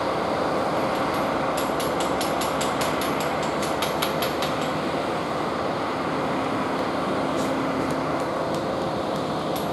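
Diesel engine of a BOMAG tandem asphalt roller running steadily as it rolls over fresh asphalt, with a run of rapid high ticking about two to four seconds in.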